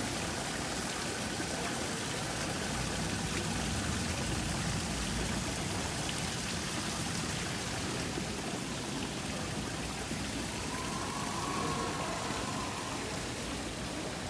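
Water splashing steadily into a garden koi pond from a cascade running down a planted wall.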